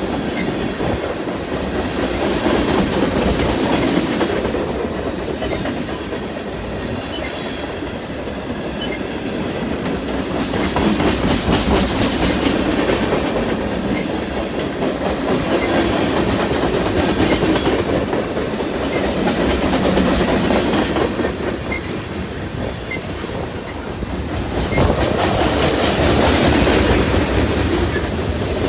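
Freight cars of a CN freight train rolling past, wheels clicking over the rail joints with a continuous rumble that swells and fades every few seconds.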